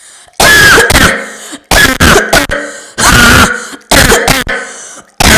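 A person coughing loudly, about five harsh coughing bouts in a row, each lasting under a second.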